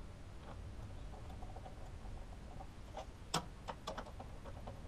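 A few sharp, irregular metallic clicks from a socket wrench working a front brake caliper mounting bolt on a Suzuki Katana. They cluster about three to four seconds in, the loudest near the middle of that stretch, over a low steady hum.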